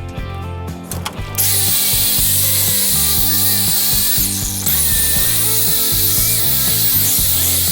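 Power tool with a wire brush scouring rust off a swage block, a loud steady rasping that starts about a second and a half in, over background music.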